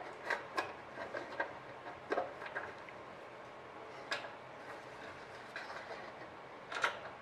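Light, scattered clicks and taps of a small metal screw clamp being fitted and tightened by hand onto an aluminium spar and angle, with a sharper click near the end.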